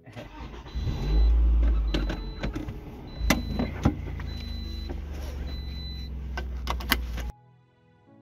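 Car power window motor running as the driver's window winds up, over a low steady rumble, with a few sharp clicks. The sound cuts off suddenly near the end.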